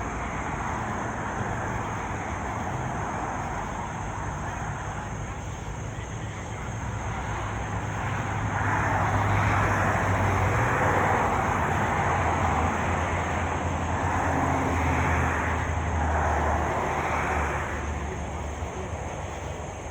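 Vehicle noise with a low engine hum, louder from about eight seconds in until near the end.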